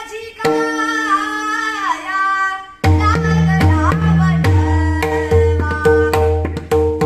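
A man singing a Marathi devotional song (abhang) over held instrumental tones; about three seconds in, hand-drum strokes come in and keep a steady rhythm beneath the singing.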